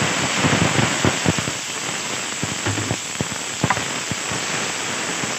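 Chopped onion and tomato sizzling in hot oil in a frying pan, a steady hiss with scattered sharp pops, as they are stirred with a wooden spatula.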